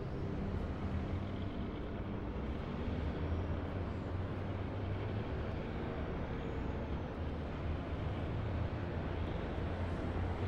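Steady low background rumble with a faint low hum, even in level throughout.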